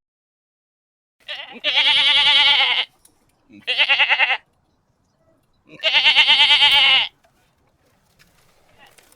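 A goat bleating three times: two long, quavering calls with a short one between them.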